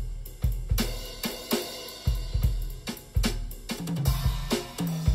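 Music led by a drum kit playing a steady groove: kick drum, snare and cymbals striking at an even beat. Low pitched notes join in near the end.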